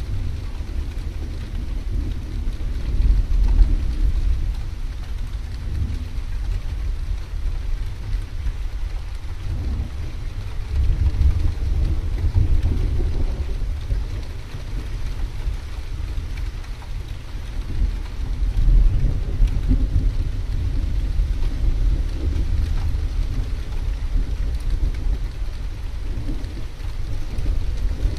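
Thunder rumbling low and long, rising and fading several times, over a faint steady hiss of rain.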